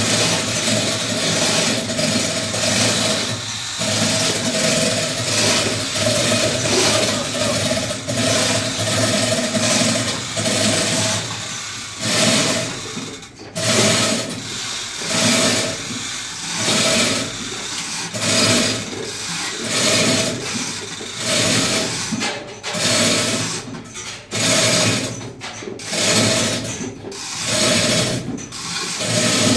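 Chain hoists rattling and ratcheting as their hand chains are pulled in repeated strokes, lifting a main-engine crankshaft. The noise swells and falls about once a second.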